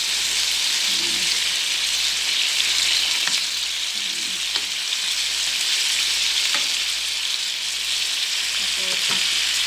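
Oysters with onion, tomato and bell pepper sizzling in a metal pan, a steady hiss. A wooden spoon stirs through the pan and scrapes it now and then, with a few light clicks.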